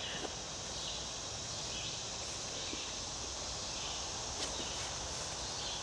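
Steady high-pitched drone of insects, with soft footsteps on grass and the rustle of a canvas tipi cover being handled around its poles.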